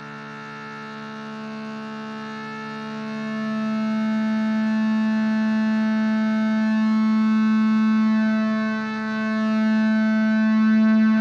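Opening drone of a heavy rock song: one sustained, buzzy note with many overtones, fading in slowly and growing much louder, with a brief dip in volume near the end.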